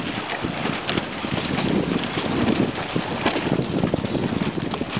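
Wind buffeting the microphone, a fairly loud rushing noise that swells and eases in uneven gusts with a crackly edge.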